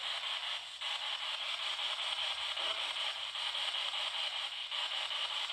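Spirit box sweeping through radio frequencies, giving a steady hiss of static with brief dropouts about a second in and near the end.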